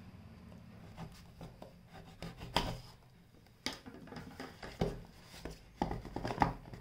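Cardboard rubbing and scraping as the white outer sleeve of a Samsung Galaxy M51 phone box is worked and slid off, with a scatter of short, sharp scuffs and taps that come thickest near the end.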